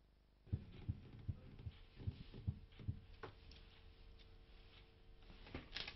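Newspaper being handled at an office desk: an irregular run of soft thumps and knocks with light rustles, over a steady low hum. It starts about half a second in, after near silence.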